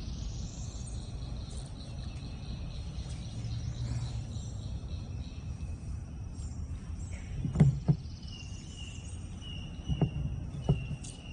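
Insects chirping and buzzing in the open air over a low steady rumble, with a few sharp knocks past the middle, two of them close together.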